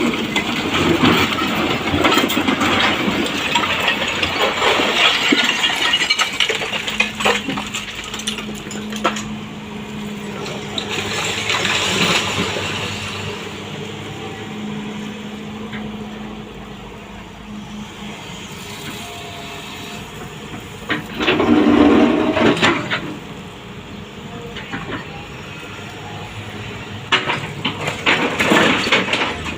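Sany excavator working through demolition debris: its diesel engine runs steadily under the irregular scraping, cracking and clattering of rubble and broken wood. A louder crash comes about two-thirds through, and a run of clatter near the end.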